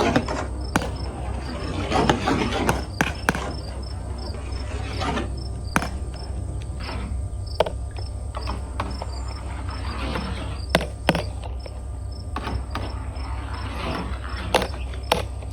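Marbles rolling down a marble-run slide track, a rushing roll that swells and fades, broken by many sharp clicks as they knock against the track and each other. A faint high chirp repeats at an even rate underneath.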